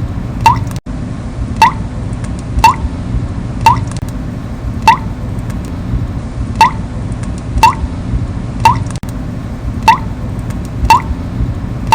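Water drops from a leaking tap falling into water, about one drip a second, each a short plink that rises slightly in pitch, over a steady low background noise.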